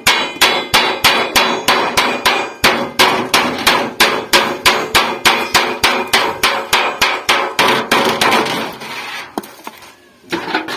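A hammer striking sheet metal from an old refrigerator, beating down the seam that joins the base of a large pot, at a steady three to four blows a second. After about eight seconds the blows grow fewer and quieter, with one last strike near the end.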